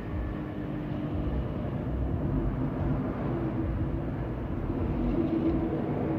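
Steady low rumbling background noise with a faint hum, without distinct knocks or clicks.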